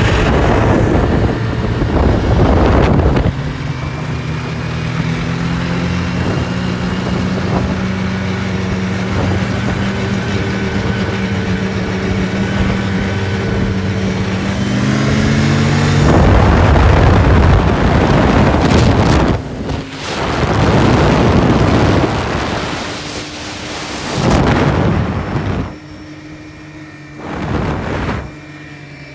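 A vehicle engine running at speed with heavy wind buffeting the microphone; the engine's pitch rises about halfway through, then the rumble of wind and travel takes over and eases off near the end.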